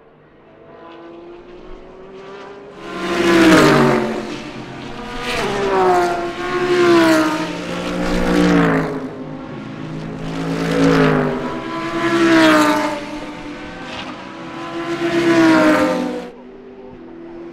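GT race cars going past at racing speed, several in quick succession. Each engine note swells loud and then drops in pitch as the car goes by.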